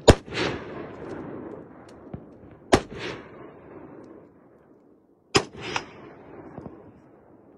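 Three gunshots, about two and a half seconds apart, each followed a moment later by a softer second report.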